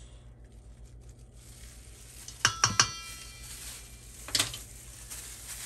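Three quick knocks on a stainless steel mixing bowl, each ringing on briefly, then one more knock a couple of seconds later, over a low steady hum.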